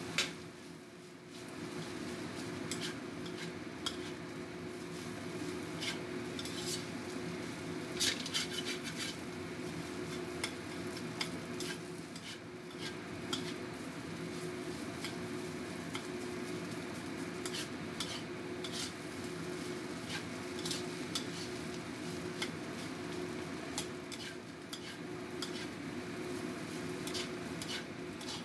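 A spatula scraping and clinking irregularly against a stainless steel wok as fried rice is tossed and stirred, over a steady sizzle and a low steady hum.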